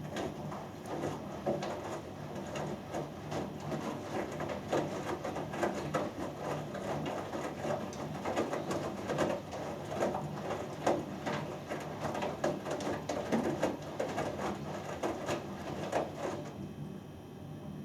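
Hoover Dynamic Next washing machine in its main wash, the drum turning and the wet laundry and water inside sloshing and dropping with many irregular soft knocks, over a faint steady hum. The tumbling stops shortly before the end, as the drum pauses between turns.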